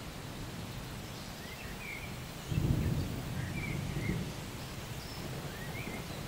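Outdoor storm ambience: scattered short bird chirps over a steady low noise, with a low rumble of thunder that swells about two and a half seconds in and fades over a second or two.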